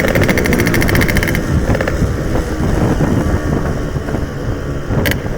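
Yamaha RX-King single-cylinder two-stroke motorcycle engine running while riding, with wind on the microphone. Its sharp upper part drops away about a second and a half in and comes back near the end.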